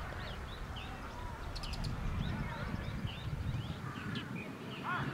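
Outdoor field sound: distant shouts and calls from soccer players, mixed with many short bird chirps, over a steady low rumble. A louder shout comes near the end.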